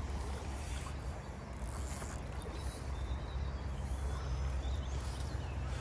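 River water rushing and sloshing around an angler wading slowly into a shallow river, under a steady low rumble.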